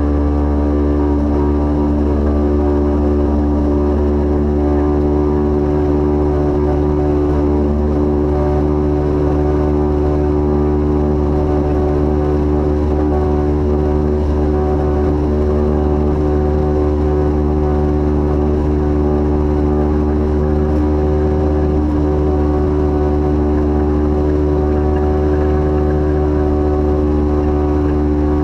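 Light aircraft's piston engine and propeller running steadily in cruise: an even, unbroken drone that holds the same pitch and loudness throughout.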